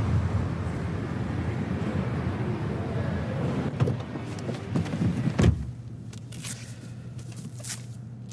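A car door stands open while someone climbs into the seat, with a steady low rumble and a few knocks, and the door shuts with a thump about five and a half seconds in. After it the closed cabin is quieter, with a steady low engine hum and a few small clicks.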